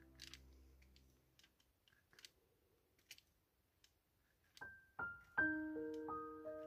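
Background piano music. A held chord dies away in the first second, and faint clicks sound in the quiet that follows. Single piano notes then come in about four and a half seconds in, with a fuller chord just after.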